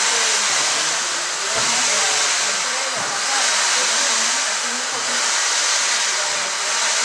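A loud, steady rushing hiss like a blower or dryer, swelling and easing every couple of seconds, with people chatting faintly underneath.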